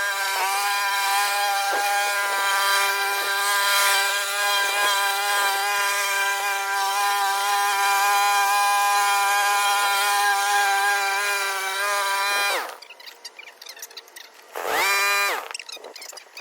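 Kohler XT675 single-cylinder engine on a walk-behind lawn mower running at steady speed, then cutting out with a quick fall in pitch about three-quarters of the way in. Near the end it briefly revs up for about a second and dies again.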